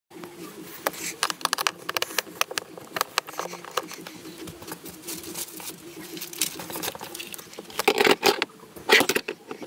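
Handling noise: irregular small clicks, taps and scrapes, with a few louder knocks about eight to nine seconds in.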